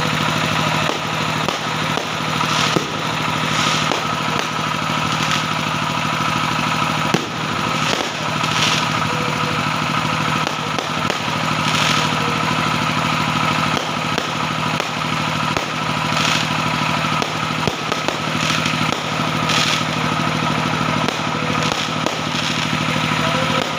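Engines running steadily at idle with a constant hum, broken by scattered sharp crackles and hissy bursts every second or two.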